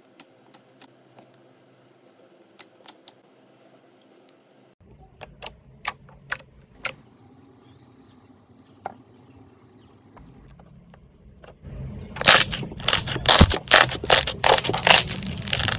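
Slime being squeezed and pressed by hand: scattered sharp clicks and pops, then near the end a dense, loud crackling as it is worked harder.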